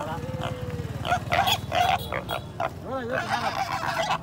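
Small pig grunting and squealing as it is handled, with a short call about half a second in and wavering calls around three seconds in.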